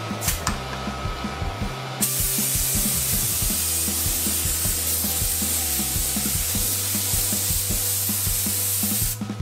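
Compressed-air gravity-feed paint spray gun spraying, a steady loud hiss of air and atomised paint that starts suddenly about two seconds in and cuts off shortly before the end, laying turquoise-green base coat onto the engine block. Background music with a steady beat runs underneath.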